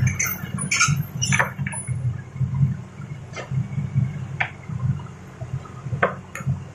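Heavy machinery's diesel engine running low and steady, with a handful of short sharp knocks of rock or steel.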